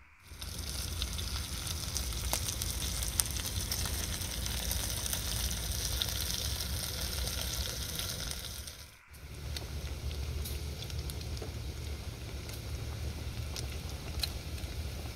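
Bacon frying in a pan: a steady sizzle dotted with small crackles and pops. It cuts out for a moment about nine seconds in, then goes on.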